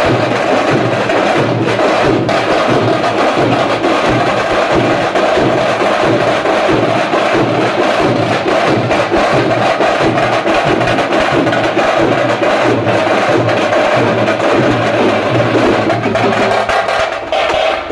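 Tamate frame drums and barrel drums beaten by a troupe in a fast, dense, continuous rhythm, thinning out near the end.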